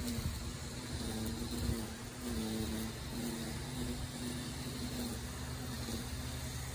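A steady engine hum, its low tone wavering slightly up and down.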